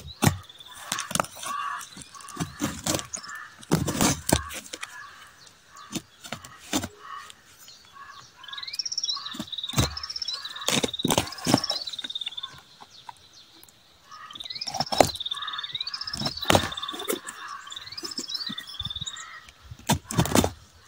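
A large knife slicing and scraping through packing tape and cardboard on a box: a string of sharp, irregular strokes and taps. A bird sings in the background in two runs of rising-and-falling song, one around the middle and one later on.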